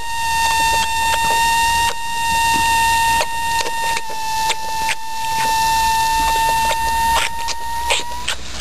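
A pig drinking from a garden hose's thin water jet: wet smacking and slurping clicks. Under them runs a steady high whistle, which slides up briefly and stops near the end.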